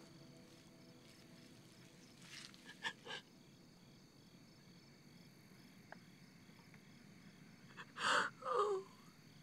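A woman weeping: a few short breathy gasps and sniffs, then a loud wailing sob near the end that falls in pitch.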